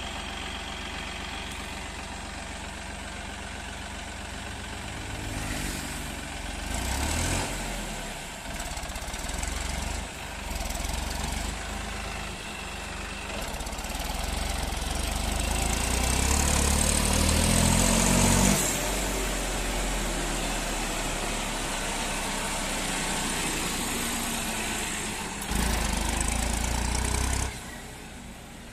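Massey Ferguson 9500 Smart tractor's 58 hp diesel engine running with a loaded brick trolley hitched. The revs rise and fall several times, build to the loudest point about two-thirds of the way through, then drop off suddenly. It runs steadily after that, with a short louder spell near the end.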